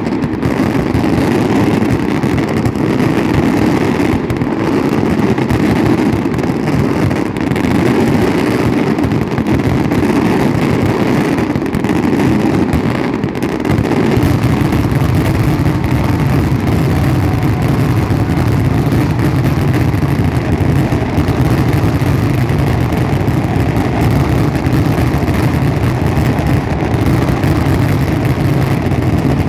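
Dense, unbroken barrage of fireworks, the bangs so close together that they merge into one loud, steady rumble. About halfway through the rumble grows deeper.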